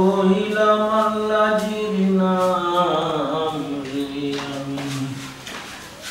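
A voice singing long, drawn-out notes in slow melodic phrases.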